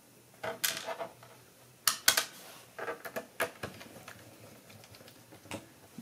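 Small screws and a screwdriver clicking and rattling against a laptop's plastic bottom case, in a few short bursts.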